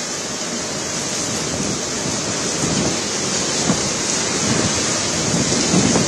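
Heavy cyclone rain pouring and strong wind gusting through palm trees: a dense, steady hiss of rain with low gusts swelling now and then and slowly building.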